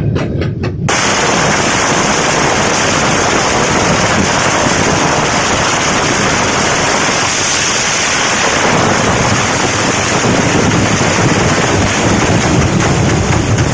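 Ground-level fireworks going off in a dense barrage: rapid separate bangs for about the first second, then bursts so close together that they merge into one loud, continuous crackle.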